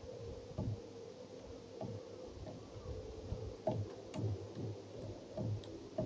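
Eurasian nuthatch pecking at a weathered wooden fence rail: irregular dull taps, one or two a second.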